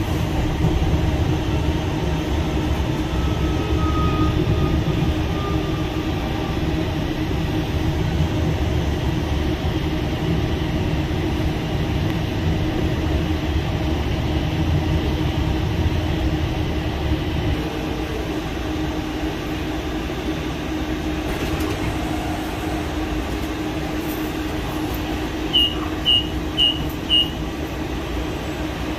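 Tucson streetcar running, heard from inside the car: a steady low rumble of wheels on rail with a steady hum over it. The low rumble eases off about two-thirds of the way through, and four short high beeps sound near the end.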